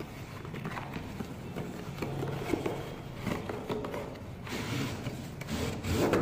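A tripod in a black cloth carry bag being slid out of its cardboard box: cardboard and fabric rubbing and scraping, with a few light knocks, loudest near the end.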